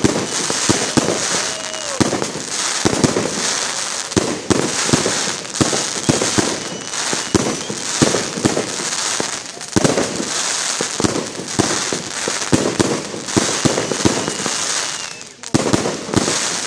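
Fireworks going off in rapid, overlapping volleys of launch thumps and bursting shells, over a continuous hiss and crackle of falling stars. There is a brief lull near the end before the firing picks up again.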